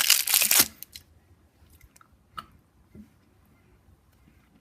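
Foil wrapper of a chocolate Easter egg crinkling for about the first second, then a few faint clicks.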